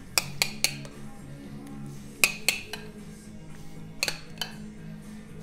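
Light clinks and taps of dishes and utensils as food is plated, coming in three short groups over quiet background music.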